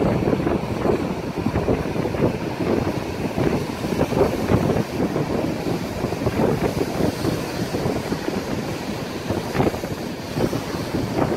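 Strong wind buffeting the microphone in irregular gusts, over the wash of rough surf breaking on shoreline rocks.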